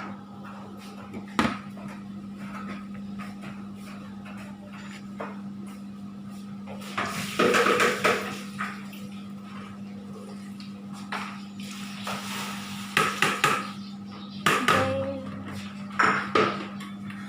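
Cooking utensils clattering and scraping against a pot or pan in scattered bursts, with sharp knocks here and there, over a steady low hum.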